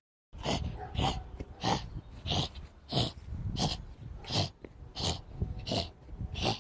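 A person making a steady run of short sniffs through the nose, about ten of them at roughly one and a half a second, as the sniffing of a dinosaur hand puppet hunting for someone.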